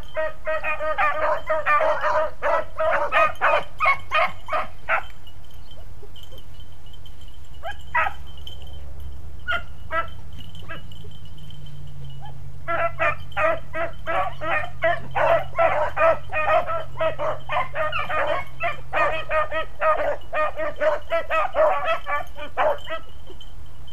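Beagles baying in fast strings of short barks, several a second, for about five seconds. They fall nearly silent apart from a few scattered barks, then take up the fast barking again for some ten seconds: hounds giving tongue as they run.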